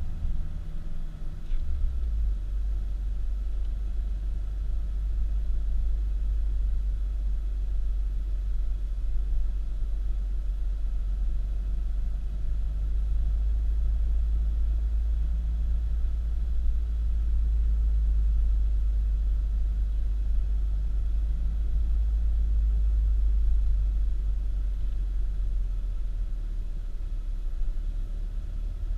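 Steady low rumble of a car being driven, with a faint engine hum above it.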